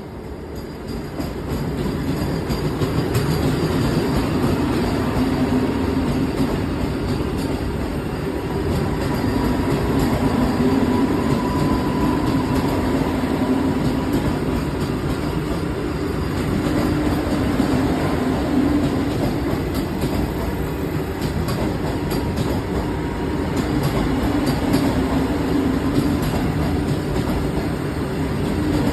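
Vande Bharat Express electric train running, a steady loud rumble of wheels on rails with a faint whine on top, building over the first few seconds and then holding; a huge noise.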